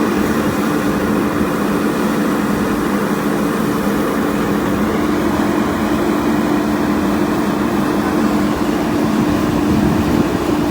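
JCB backhoe loader's diesel engine running steadily, with a constant low hum.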